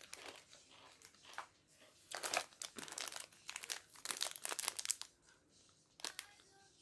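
Crinkly plastic candy wrapper rustling and crinkling as it is picked up and turned in the hands, busiest and loudest in the middle, with another short rustle near the end.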